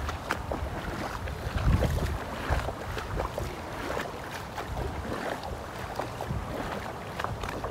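Wading footsteps through shallow flood water on a street: irregular splashing and sloshing, with some wind rumble on the microphone.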